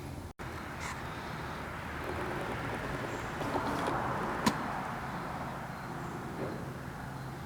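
A vehicle passing by, its noise swelling and fading over a few seconds, over a steady low hum, with one sharp click at the loudest point.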